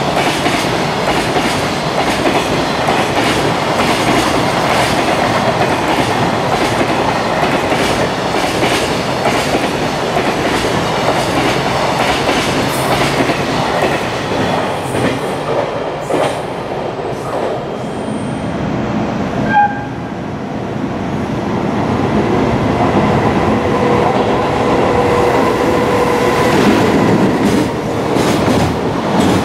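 Container freight train passing at speed: a steady rumble of wagon wheels with fast clickety-clack over the rail joints. The noise eases for a few seconds about two-thirds of the way through, then builds again.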